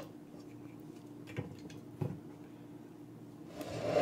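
A steady low hum with a few soft knocks. About three and a half seconds in, a spatula starts moving diced potatoes around a hot oiled skillet, a scraping sizzle.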